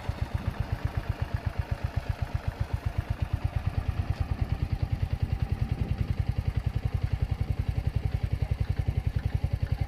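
An engine idling with a steady, low, even thumping of about eight beats a second.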